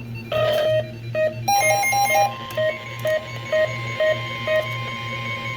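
NOAA Weather Radio alert starting: a short burst of warbling SAME data tones about a second and a half in, then the steady 1050 Hz warning alarm tone. Short electronic alert beeps, about two a second, sound over it until near the end.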